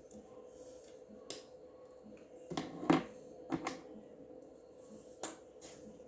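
Colouring supplies being handled on a table: a few light clicks and knocks, the loudest cluster about three seconds in, over a faint steady hum.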